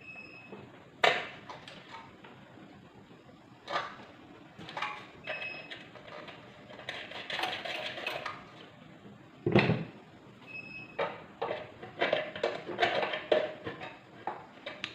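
Scattered clicks, taps and rattles of small metal parts and wiring being handled while the wires are connected to a rice cooker's power socket, with busier stretches of handling and one heavier knock about nine and a half seconds in.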